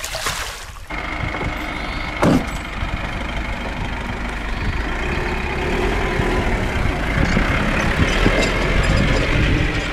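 A brief rush of water at the start, then a GAZelle light truck's engine running as the truck drives slowly, getting louder toward the end. A single knock sounds about two seconds in.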